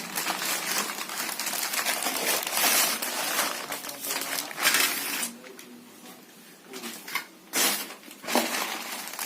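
Packaging and parts being handled during an unboxing: steady rustling and crinkling for about five seconds, then a few short clatters near the end.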